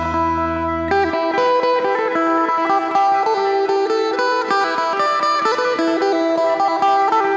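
Background music: a Thai phin (plucked lute) playing a quick melody over a steady held drone note. A low bass layer drops out about a second in.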